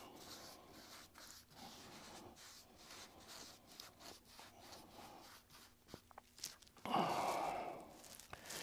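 Soft, irregular brush strokes as varathane is brushed onto a model-railway road surface. About seven seconds in comes a loud sigh, a long breath out.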